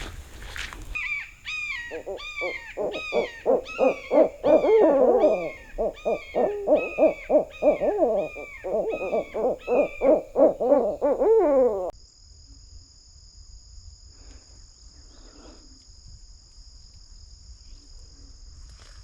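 Owls hooting in a long, rapid, excited run of notes that slide down in pitch, several voices overlapping. The run stops abruptly about twelve seconds in, leaving a steady high-pitched insect buzz.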